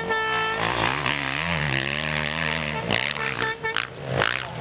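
Motocross bike engines revving as a rider passes, the pitch rising and falling as the throttle opens and closes. A steady horn-like note sounds for about the first half second.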